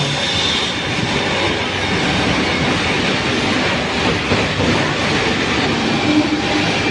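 Cabinet-door hinge boring machine running, a steady, dense mechanical noise.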